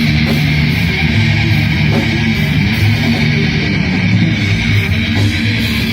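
Rock band jamming loud heavy-metal riffs on electric guitar over bass guitar, continuous and without a break.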